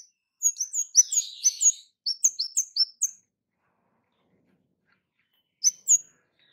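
Orange-headed thrush giving sharp, high 'cit' calls: a quick run of about a dozen short notes in the first three seconds, then a pause and two more near the end.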